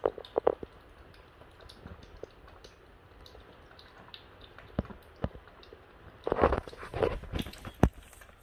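French bulldog puppy eating dry kibble from a plastic bowl: short crunches and clicks of chewing, a few at the start, sparse through the middle, and a denser run from about six to eight seconds in.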